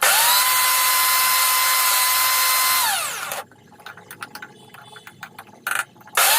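Electric mixer grinder's small jar dry-grinding ginger, raw turmeric and whole spices in a short run: the motor whines steadily for about three seconds, then winds down with a falling pitch. A few seconds of faint knocks and rattles follow, and the motor starts up again near the end.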